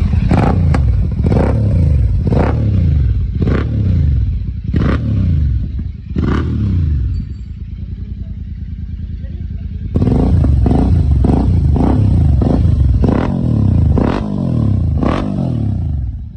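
Motorcycle engine with a newly fitted GT aftermarket exhaust, revved in repeated sharp throttle blips that each drop back toward idle. In the middle it settles to a steady idle for a few seconds, then comes a fresh run of quick blips.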